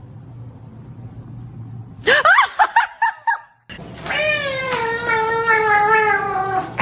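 Cats meowing: a quick run of short, rising meows about two seconds in, then after a brief break one long drawn-out meow, slowly falling in pitch, lasting about three seconds.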